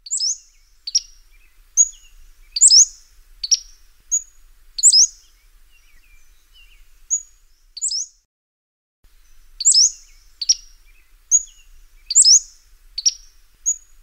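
Pacific-slope flycatcher calling and singing: a run of short, thin, high notes, many sliding sharply upward, spaced roughly a second apart, with a brief gap a little past halfway.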